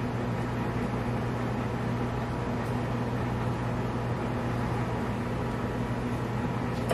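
Microwave oven running: a steady electrical hum with a constant low drone.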